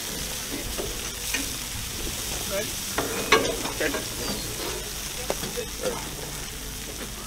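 Fat sizzling and crackling as it drips from a whole beef carcass onto the fire below, a steady hiss with a few scattered knocks, the sharpest a little over three seconds in.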